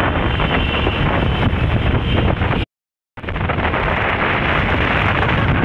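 Wind buffeting the microphone on a moving motorcycle, a dense steady rush with road and traffic noise beneath. It cuts out completely for about half a second near the middle.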